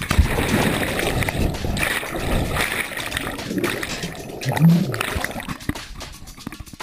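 Body-worn camera plunging into a lake from a cliff jump: a splash right at the start, then muffled underwater rushing and bubbling that fades as it comes back toward the surface.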